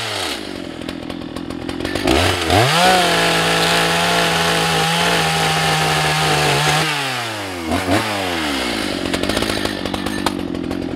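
Husqvarna 181 SE two-stroke chainsaw settling to idle, then revved to full throttle and held steady for about five seconds while cutting through a log of dirty ash. It drops back to idle with a brief blip near the end of the cut. Its chain is dulled by the dirty wood.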